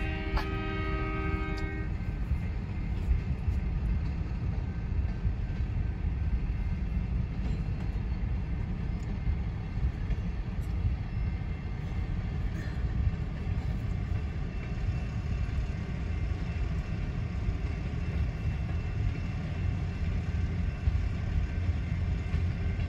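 A freight locomotive's air horn sounds a steady chord and cuts off about two seconds in. It is followed by a steady low rumble, heard from inside a car cabin, as the freight train rolls slowly past.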